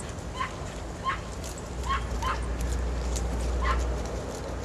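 A dog yipping about five times at uneven intervals, short sharp barks. A low rumble swells in the middle.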